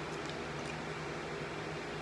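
Room tone: a steady low hum with a faint hiss, with a few faint clicks.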